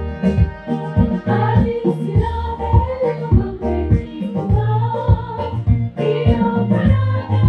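Gospel choir singing a melody together over instrumental backing with a strong bass and a steady beat.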